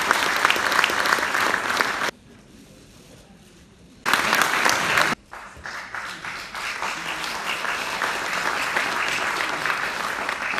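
Audience applauding in a hall. The clapping cuts off abruptly about two seconds in, returns briefly, cuts off again, then builds back up and carries on.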